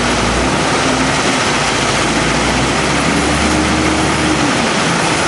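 Komatsu WA500-6 wheel loader's diesel engine working under load as the loader drives its bucket into a gravel pile. The engine note climbs about three seconds in, holds, and drops away near the end.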